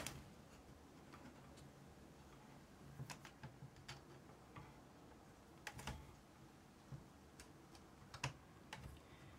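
Faint, irregular light clicks and taps of a screwdriver tip and fingers against the plastic and metal parts of a Sony ST-S1 cassette deck mechanism as its rubber drive belt is worked off a pulley, over near silence.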